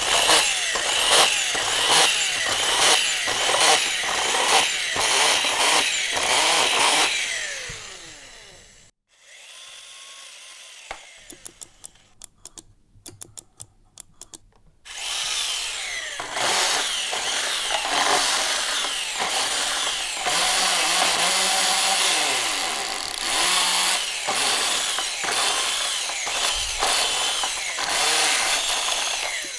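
Toy electric screwdriver's small motor and plastic gears running hard on 15 to 20 volts from a bench power supply, overpowered, clattering with rapid clicks as it drives plastic screws. Around the middle it goes quieter, with only a few light clicks, then it runs loud again.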